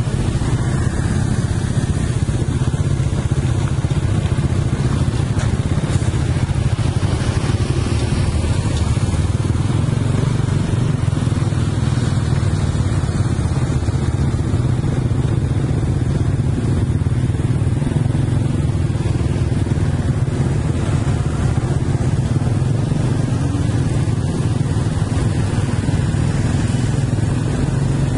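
Steady low drone of vehicle engines with road and wind noise, heard from a motorcycle riding close beside a slow-moving heavy-haul truck and lowbed trailer.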